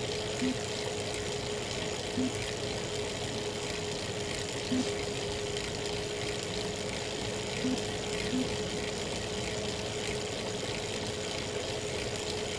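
Elite Real Turbo Muin B+ bike trainer running under pedalling with a steady whine, broken five times at uneven intervals by a short crack. This is the cracking noise the owner gets from the trainer at any cadence once power is over 200 watts.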